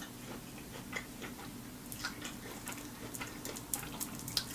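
Eating sounds: a fried lemon pepper chicken wing being pulled apart by hand, with quiet chewing, heard as faint, scattered small clicks and ticks.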